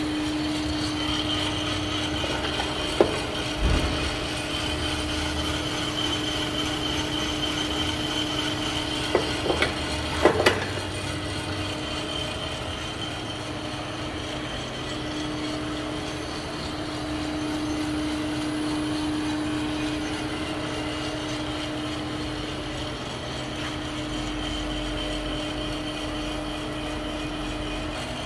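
Coffed SR5 5 kg drum coffee roaster running: a steady machine hum with one held tone. A few short knocks come about three to four seconds in and again around ten seconds in.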